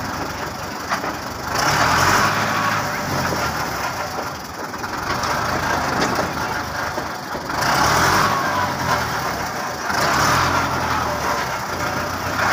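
Belarus tractor's diesel engine running under load while pushing a trolley loaded with bricks. It revs up in surges of a couple of seconds each, about three times, then drops back between them.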